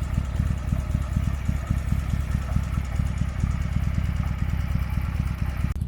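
Harley-Davidson Sportster V-twin motorcycle running steadily at riding speed, its exhaust giving a low, even pulsing, with wind and road noise on top. The wind and road noise drop away abruptly near the end.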